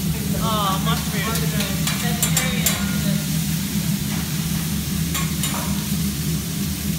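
Food sizzling on a steel teppanyaki griddle, with a metal spatula scraping and clinking against the hot plate in a few sharp strokes. A steady low hum runs underneath.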